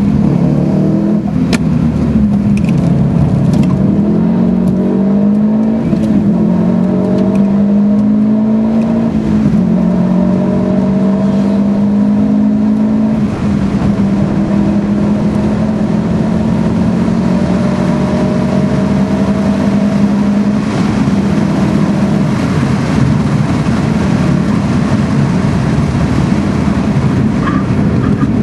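Subaru Impreza STI's 2.5-litre turbocharged flat-four, running through a Milltek exhaust, pulling hard under full throttle, heard from inside the cabin. The engine note climbs and drops back at each upshift, about four times in the first thirteen seconds, then holds a steadier, slowly rising note.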